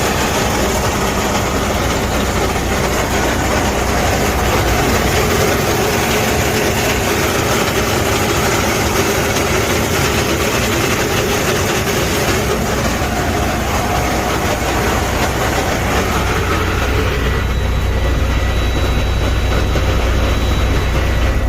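Freightliner Cascadia's 10-speed transmission making a loud mechanical noise over the running diesel engine: the sign of internal gear damage, bad enough that the transmission must be replaced. About two-thirds of the way in, the higher-pitched noise eases and a deeper rumble takes over.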